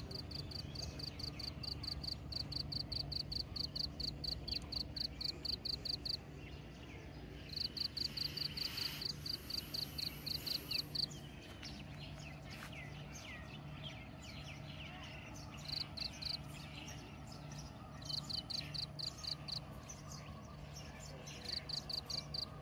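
Rural outdoor ambience: a high-pitched call repeated about four times a second in runs of several seconds, breaking off and starting again, with scattered bird chirps between the runs.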